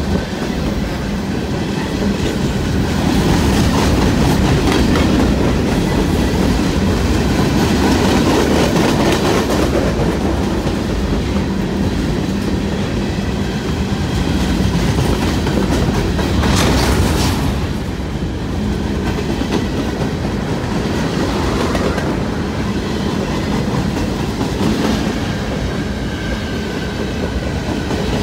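Freight cars of a CN mixed freight train (centerbeam flatcar, covered hoppers, gondolas) rolling past close by: a steady rumble of steel wheels on rail with repeated wheel clicks. A brief sharper, higher noise comes about seventeen seconds in.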